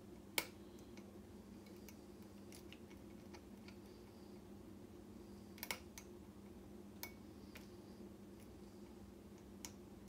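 Lock pick and tension tool working the pins of a pin-tumbler challenge lock built from a Master Lock 6835: faint, scattered metallic clicks, a sharper one about half a second in and a quick pair near the middle, over a steady low hum.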